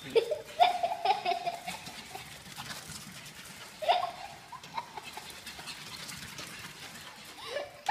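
Small dog's whining and yipping while play-fighting a kitten: one drawn-out whine starting about half a second in, then short yips around four seconds in.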